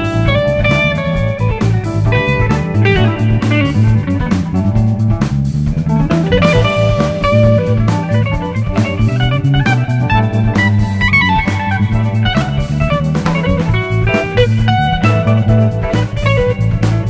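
Live rock band playing an instrumental passage: an electric guitar plays a melodic line with gliding, bent notes over bass guitar and drum kit.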